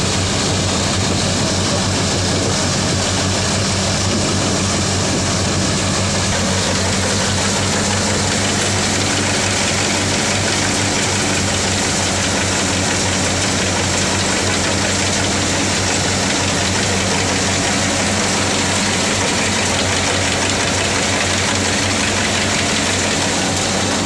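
Tractor-driven wheat thresher running steadily as wheat sheaves are fed in: a steady tractor engine hum under the even rushing whir of the threshing drum.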